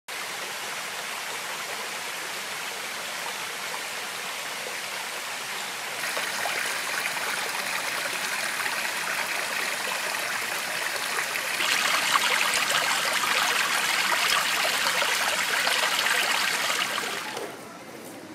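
Stream water rushing and splashing over rocks in a shallow mountain creek, a steady hiss that gets louder in two steps, about six and twelve seconds in, then drops away near the end.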